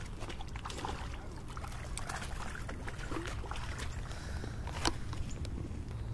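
Steady low rumble of wind on the microphone, with scattered rustles, scrapes and clicks of an angler crouching on gravelly rocks and handling a small largemouth bass at the water's edge. One sharper click comes about five seconds in.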